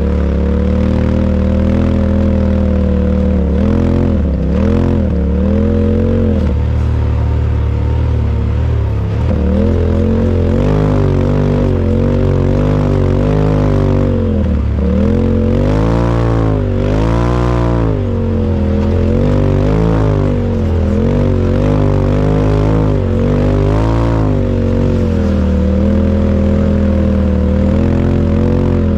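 Side-by-side UTV engine running hard, its pitch repeatedly dropping and climbing again as the throttle is let off and reapplied.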